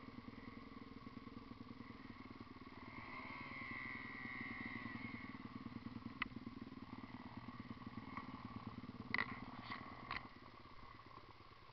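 Dirt bike engine idling steadily, with a few sharp clicks near the end.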